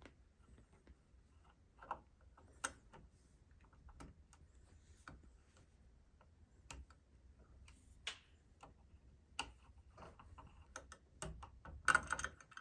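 Faint, scattered small clicks and taps of a screwdriver working the tiny screws out of a Kwikset electronic deadbolt's interior cover, with a louder cluster of clicks near the end.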